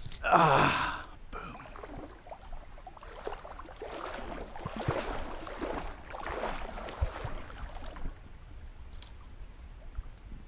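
Kayak paddle strokes dipping and splashing in creek water, several in a row. About half a second in, a loud, brief sound falls steeply in pitch.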